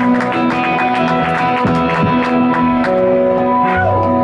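Live rock band playing an instrumental passage: guitars holding sustained notes and changing chords over drums and cymbals.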